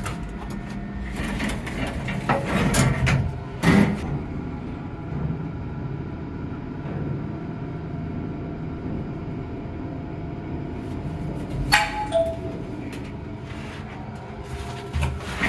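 Passenger lift in motion: a steady low hum from the moving car, with a few knocks in the first four seconds. About twelve seconds in, a short two-note chime sounds, falling in pitch, as the lift arrives.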